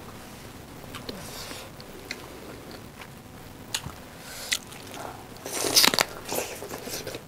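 Close-up eating sounds: quiet mouth and hand sounds with a few sharp clicks, then about five and a half seconds in a loud crunchy bite into a raw green chili, followed by smaller crunching clicks as it is chewed.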